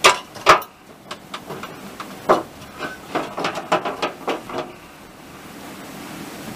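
Train in motion: a run of sharp metallic knocks and clatter over the steady rushing noise of the ride, two heavy knocks at the start, then a quicker, uneven string of about ten knocks that dies away before the end.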